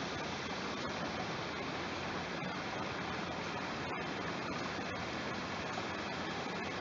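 Small waterfall pouring steadily into a creek: a constant, even rush of falling water.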